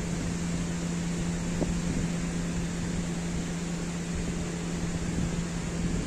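A machine's steady low hum, holding one pitch, over an even rushing hiss.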